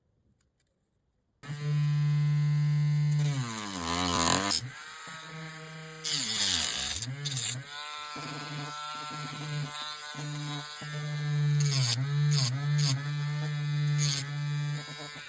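Small handheld electric power tool's motor starting about a second and a half in and running with a steady hum. Its pitch sags several times, with bursts of grinding hiss, as it bites into the work under load.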